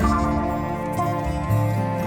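Instrumental background music: held notes over a bass line that changes note every second or so.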